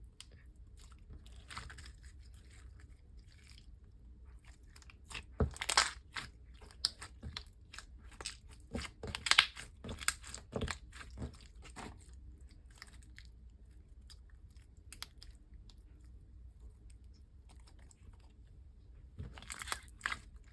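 Glossy slime being squished and worked by hand, making irregular sticky clicks and pops in bunches, with a quieter stretch in the middle.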